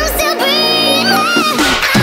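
Background music with a singing voice.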